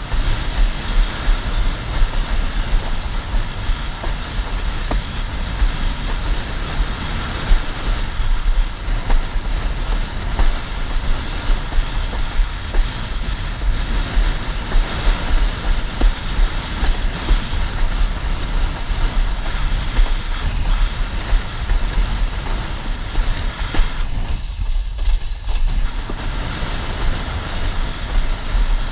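Wind buffeting hard on the microphone of a windsurfing board camera, mixed with water rushing and slapping against the moving board. The rush eases briefly near the end.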